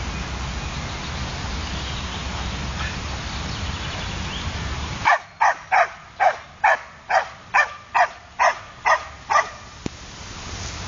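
A podenco dog barking about eleven times in an even run, a little over two barks a second, each bark dropping in pitch; the barking starts about halfway in. Before it there is a steady low rumble that cuts off suddenly as the barking begins.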